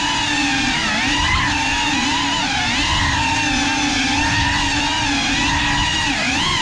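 GEPRC CineLog 35 cinewhoop's four brushless motors and ducted propellers whining, the pitch wavering up and down together with the throttle.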